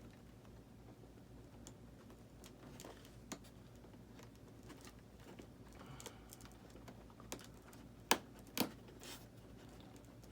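Scattered light clicks and taps from hands handling small plastic gear, with two sharper clicks about half a second apart near the end, over a faint low hum.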